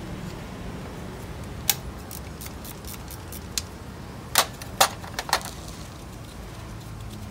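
Metal hand tools clinking against a steel tool tray and a diesel engine block during teardown: a single click, a run of light, evenly spaced ticks, then several sharp clanks a little past halfway.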